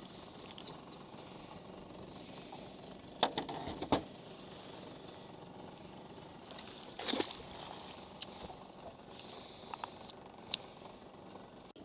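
Knocks and bumps from handling a freshly caught zander aboard a small boat: a cluster of loud knocks about three seconds in, another about seven seconds in, and a few light clicks later, over a steady background hiss.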